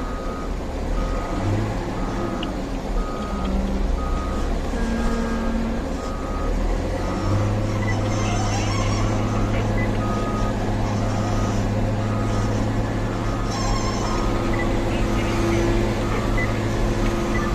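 Reversing alarm of heavy road equipment beeping about once a second over a diesel engine running, the engine getting louder about seven seconds in.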